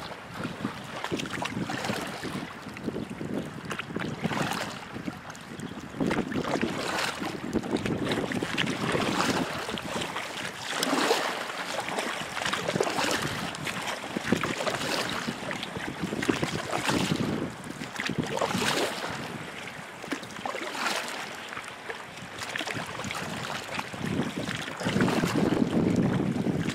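Double-bladed paddle strokes from an inflatable canoe: the blades dip and splash on alternate sides, with a water splash about every two seconds, over wind buffeting the microphone.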